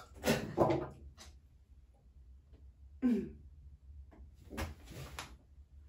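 A woman's wordless vocal sounds with a piece of carrot in her mouth: a loud sound falling in pitch just after the start, a shorter falling one about three seconds in, then a few breathy sounds near the end.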